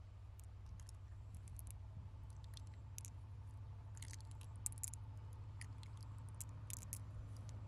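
Freshwater pearls clicking against each other in a cupped hand as they are picked out of an opened mussel: faint, irregular little clicks, busiest around the middle, over a steady low hum.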